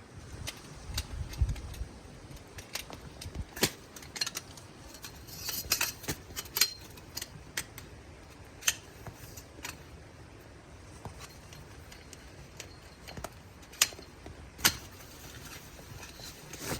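Irregular sharp clicks and taps over a faint steady hiss, with two louder clicks near the end.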